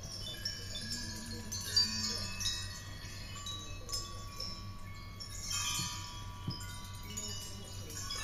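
A metal sound sculpture chiming: many high, bell-like tones start one after another, overlap, ring on and fade, like wind chimes.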